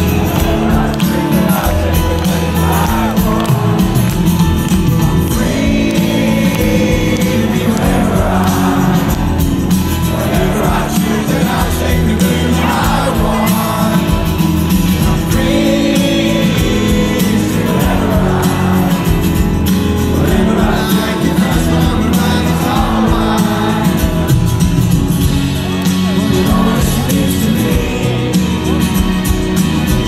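Live rock band playing loudly, with acoustic guitar, drums and a sung vocal, heard through a phone microphone in the middle of the crowd.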